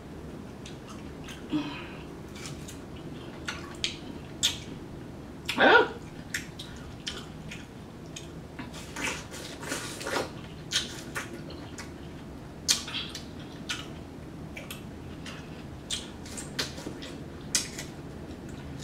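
Close-miked wet eating of juicy cantaloupe slices: irregular bites, chewing smacks and slurps. A short pitched voice sound about six seconds in is the loudest moment, with a weaker one near ten seconds.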